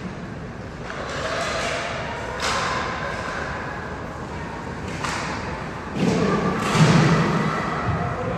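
Ice hockey play in an echoing rink: several thuds and slams, of the puck or players hitting the boards, over skates scraping the ice. The hits come louder and closer together near the end.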